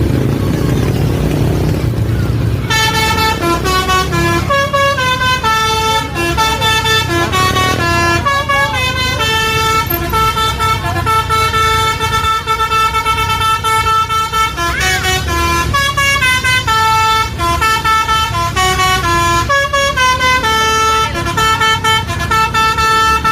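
Bus telolet horn, a Basuri multi-tone horn set, playing a fast tune of stepped notes that starts about two and a half seconds in and keeps going, over the low running of the bus engine.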